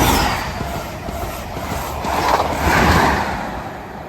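The Midland Pullman, a Class 43 HST set, passing through the station at speed: a loud rushing rumble of wheels on rail that swells again about two and a half seconds in and fades near the end.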